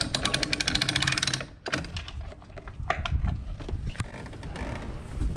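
Fast, even clicking of a hand ratchet being worked for about a second and a half, followed by scattered knocks and handling noise.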